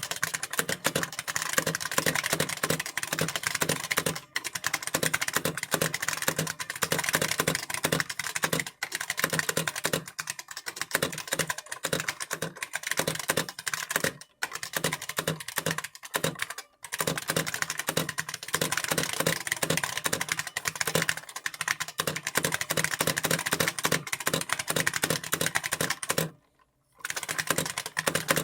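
Continuous fast typing on a reproduction IBM Model F keyboard, its buckling-spring keys clicking in a dense clatter. There are brief pauses about four, fourteen and seventeen seconds in, and a longer one near the end.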